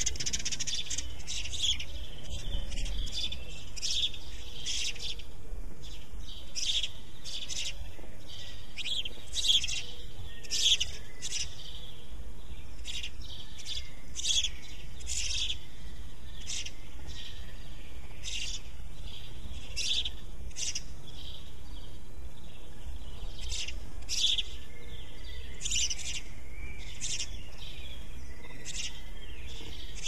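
Male house sparrow chirping: a long series of short, repeated cheeps, about one or two a second.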